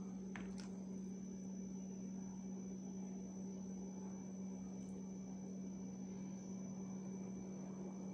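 A steady low hum with a faint high-pitched whine above it over a light hiss. A faint click or two come about half a second in.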